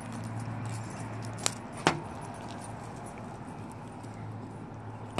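Scissors snipping at a small cardboard box, two sharp clicks close together about a second and a half in, over steady background noise.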